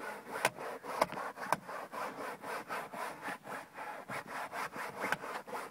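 Rapid, even rubbing strokes, about four a second, with a few sharper clicks in the first couple of seconds.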